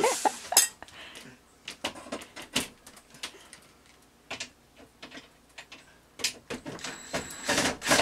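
Irregular knocks, clicks and scrapes of wooden framing and trim being pried and pulled loose by hand from a wall opening, with a quick run of knocks near the end.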